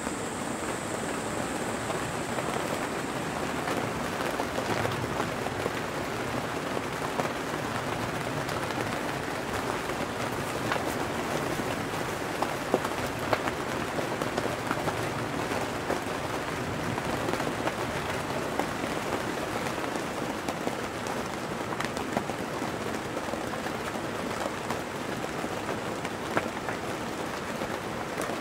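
Steady rain heard from inside a tent, with scattered louder drops tapping.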